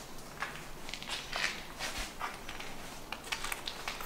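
Footsteps on a floor strewn with grit and debris: an irregular run of short scuffs and crunches.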